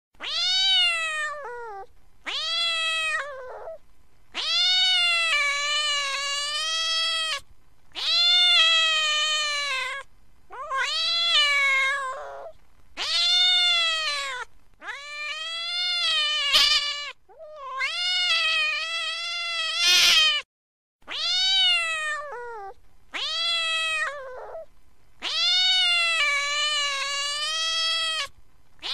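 Domestic cat yowling angrily in about eleven long, drawn-out calls, each lasting one to three seconds with short pauses between. Each call rises in pitch at the start and falls away at the end.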